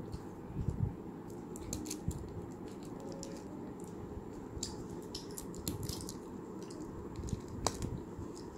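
Plastic shrink-wrap on a paperback book crinkling as hands handle it, in short scattered crackles and clicks.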